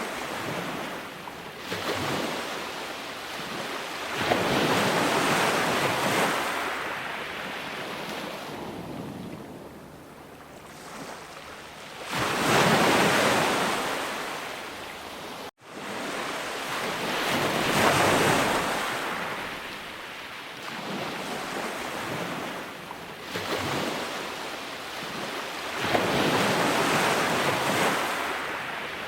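Sea waves breaking and washing ashore, the surf swelling and falling away every few seconds. There is a momentary cut to silence about halfway through.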